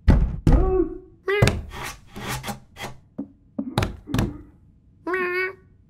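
Cartoon cat thumping and scratching on a wooden door with its paws, a quick uneven run of knocks, broken by short meows and a longer meow near the end.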